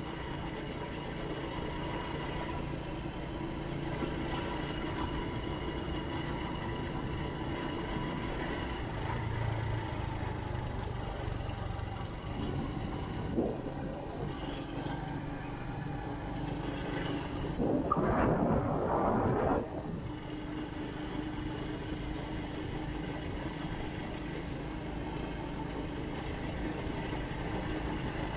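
Engine of a vehicle running steadily as it cruises along an empty road, its pitch drifting slowly up and down. A short knock comes about halfway through, and a louder rushing noise lasts about two seconds, a little past the middle.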